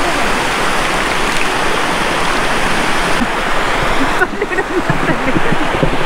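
River water rushing steadily over rocks, loud and close; the rush turns duller about four seconds in. Faint voices of people in the water come through in the second half.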